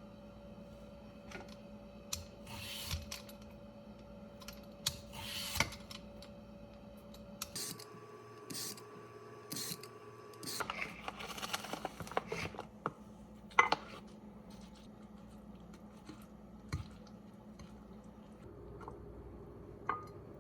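Kitchen food-preparation sounds: scattered clicks, taps and brief rustles of utensils and food being handled, over a steady low appliance hum. The loudest is a sharp knock about 13.5 s in.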